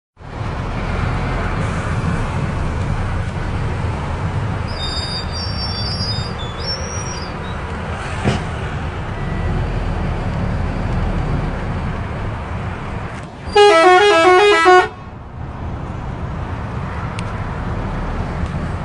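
Steady low engine and road rumble heard from inside a truck cab moving in traffic. About two-thirds of the way through, a loud horn sounds once for over a second with a wavering pitch.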